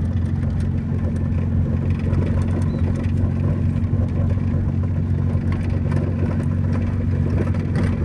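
Car driving along an unpaved dirt road, a steady low drone of engine and tyre noise.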